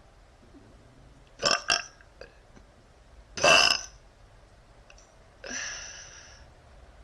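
A woman burping: a loud burp about three and a half seconds in, then a longer, softer burp near the end. Before them, about a second and a half in, come two short sharp sounds close together.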